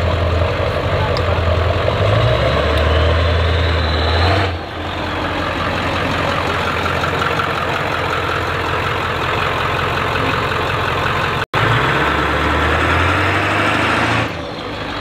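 Lifted Ford Super Duty pickup's 7.3L Power Stroke diesel engine running as the truck drives slowly, its low note swelling and easing with the throttle. The sound changes abruptly twice, once about a third of the way in and again about three-quarters through.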